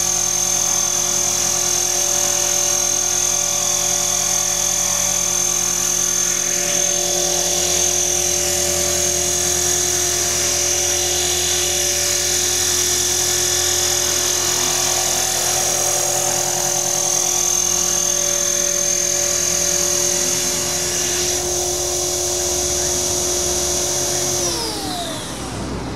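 Align T-Rex 450 XL electric RC helicopter flying, its motor whine and rotor blades running steadily at a constant pitch. Near the end, after it sets down on the grass, the motor and rotor spool down, every tone sliding lower together.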